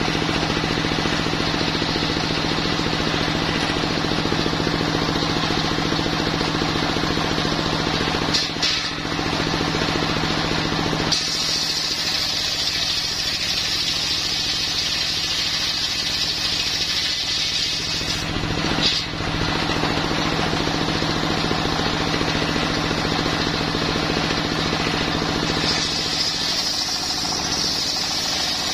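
Homemade circular sawmill, its blade driven by a stationary engine, sawing a coconut-wood log. The engine runs steadily throughout. A high cutting whine sets in about 11 seconds in, stops around 18 seconds, and comes back near the end as the next cut begins.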